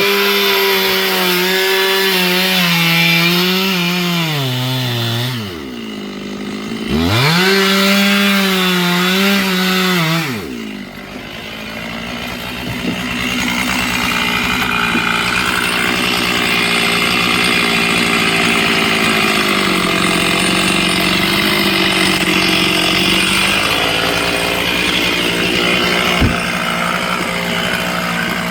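Two-stroke chainsaw revving high, dropping off and revving back up, then from about ten seconds in running steadily with a rougher, noisier sound. One sharp knock near the end.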